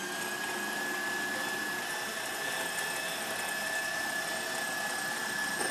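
Stand mixer switched on and running on high with a wire whisk, whipping honey: a steady motor whine.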